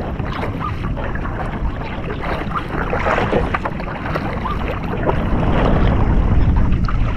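Wind rushing over the microphone and water splashing against a kayak at sea: a steady rushing noise with small scattered knocks and splashes.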